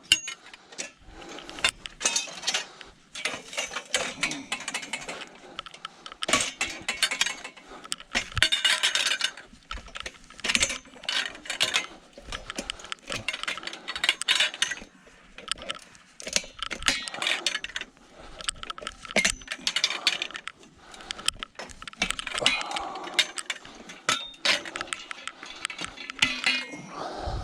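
Scrap metal pieces clanking and clattering against each other in irregular bursts as they are pulled about and loaded by hand.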